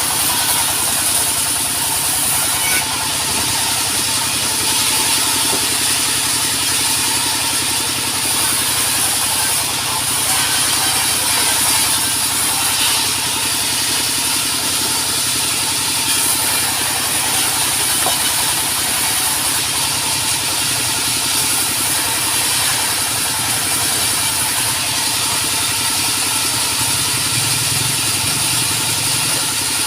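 Sawmill engine running steadily, with a constant high hiss over the engine hum.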